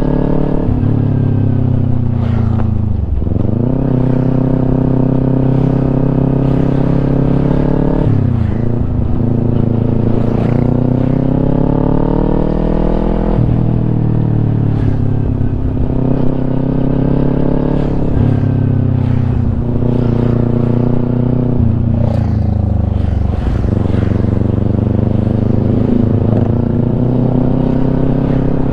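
Kawasaki Ninja 250 with an aftermarket Yoshimura exhaust running under way, its note climbing steadily and then dropping sharply about five times as the revs rise and fall between gears and throttle changes.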